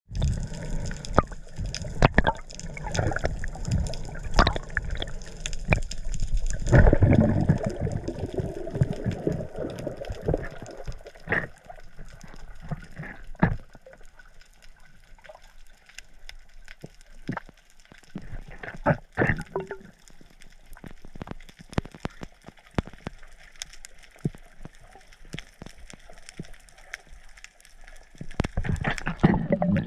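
Underwater sound picked up by a submerged camera: muffled water movement and bubbling, heavier in the first seven seconds or so and again near the end, with many scattered sharp clicks and crackles.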